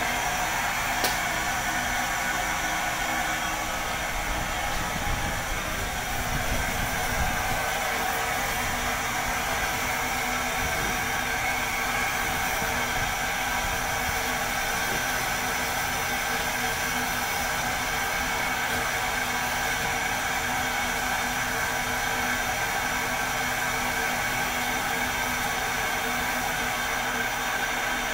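Steam tank locomotive standing at the platform and hissing steam steadily, with a faint low rumble a few seconds in.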